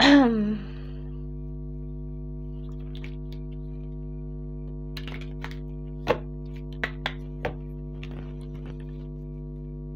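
Steady ambient background music of sustained droning tones, with a short voice sound falling in pitch at the very start. A handful of light clicks and taps of an oracle card deck being shuffled come over it, the sharpest about six seconds in.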